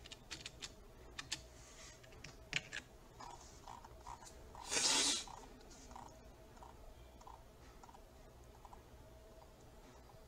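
Clicking at a computer: a run of sharp clicks in the first three seconds, then faint light ticks as the page is scrolled. About five seconds in comes a short, louder rush of noise.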